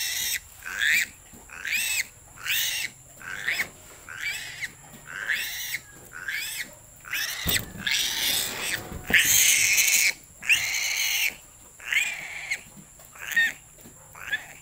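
Newborn piglet squealing in distress while being held and having its splayed hind legs tied: short rising-and-falling squeals about once a second, then longer, louder squeals from about eight seconds in, before short squeals again near the end.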